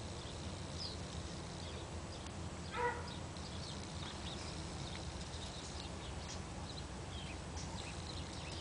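Faint outdoor ambience: a low steady hum with scattered small high chirps, and one short pitched animal call about three seconds in.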